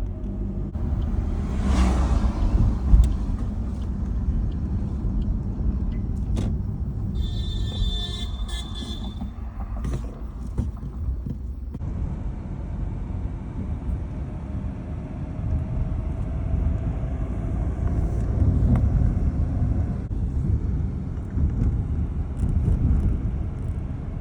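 Car driving along a highway, its engine and tyres making a steady low road rumble. About a third of the way in, a high tone sounds for about two seconds.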